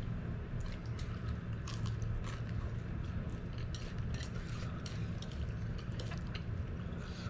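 Close-up chewing and biting of spicy instant noodles stir-fried with purslane, with many small wet clicks and smacks throughout. A steady low hum runs underneath.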